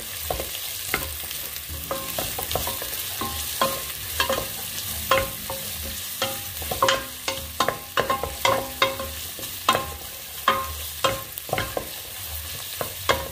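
Wooden spatula stirring garlic, onion and ginger frying in oil in a stainless steel pot: irregular knocks and scrapes against the metal, each making the pot ring briefly, over a steady sizzle. The knocks come thicker about halfway through.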